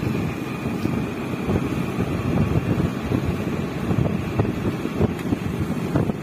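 Wind buffeting the microphone on a moving two-wheeler, a gusty rumble mixed with the ride's engine and road noise.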